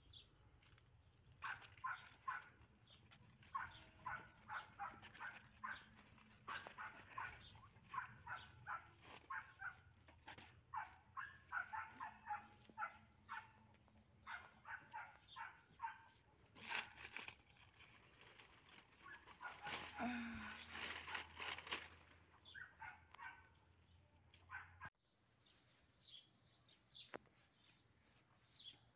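A dog barking over and over in quick short barks, faint, with a few seconds of rustling noise about two-thirds of the way through.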